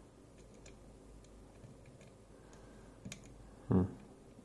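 Faint, scattered small clicks of a dimple pick and tension tool working the pins inside a DOM ix10KG dimple lock, with one brief louder low thump about three-quarters of the way in.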